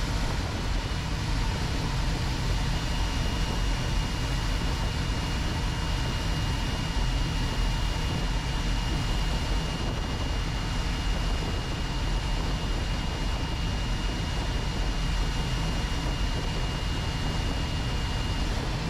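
Steady in-flight cockpit noise of an L-39 Albatros jet on landing approach: its single Ivchenko AI-25TL turbofan running at reduced power as an even rumble, heaviest in the low end. A thin, steady high whine sounds from about a second in until near the end.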